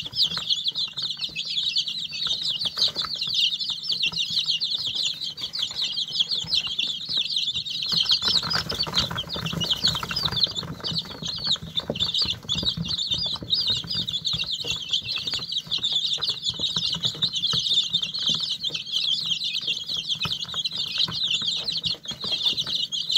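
A brood of young chicks peeping continuously, many high thin peeps overlapping into a steady chorus. A low rustling noise swells for a few seconds near the middle.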